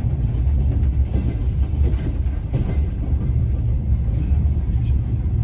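Passenger train carriage heard from inside while running: a steady low rumble with a few wheel clicks over the rail joints.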